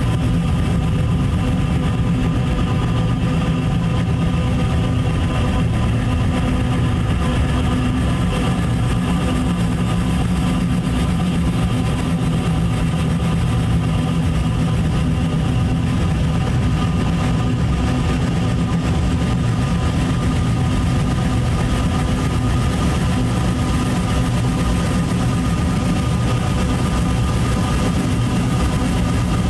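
Dark ambient drone music: a dense, steady low rumble with several sustained tones held above it, unchanging throughout.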